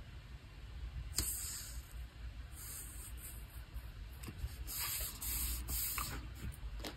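Fingers peeling a washi sticker strip and rubbing it down onto a paper planner page: soft papery rubs and slides, several in a row, the longest near the end.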